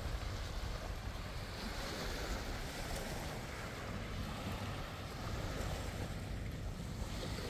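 Wind buffeting the microphone as a steady low rumble, over the even wash of sea waves.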